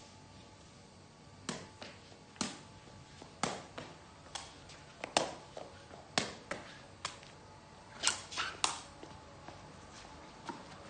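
A sepak takraw ball being kicked up repeatedly in a juggling run: a dozen or so sharp taps, roughly one a second with some close pairs. The taps stop near the end.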